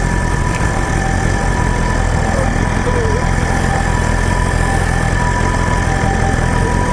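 The 2021 BMW S1000RR's inline-four engine running steadily, with an ambulance's two-tone siren alternating between a higher and a lower pitch over it.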